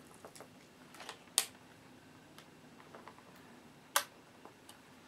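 Small clicks and taps from parts of a Dell D830 laptop being handled and pressed, with two sharp louder clicks, about a second and a half in and about four seconds in, and fainter ticks between.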